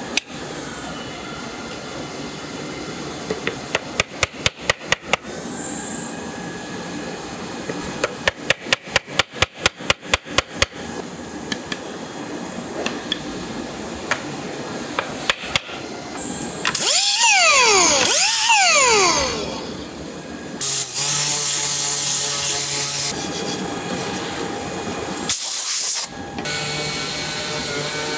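Woodworking power tools shaping wooden trivets. Twice there is a run of quick clicks. Then a whine rises and falls twice, and near the end a motor runs steadily and loudly with a low hum, broken by one brief loud burst.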